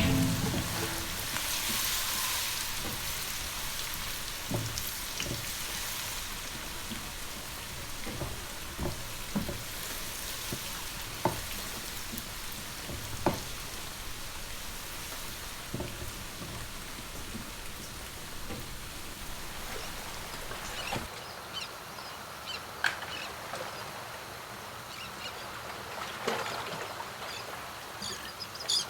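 Food frying in hot oil in a pot: a steady sizzle with scattered crackles and pops, and a few sharper knocks.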